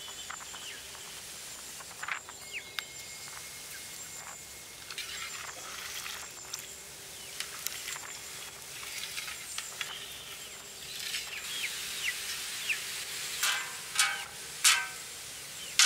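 A long metal ladle stirring rice in a large metal pot of boiling water, with scattered light clinks and scrapes over a soft steady hiss. Near the end a flat metal lid is set on the pot with a few clanks.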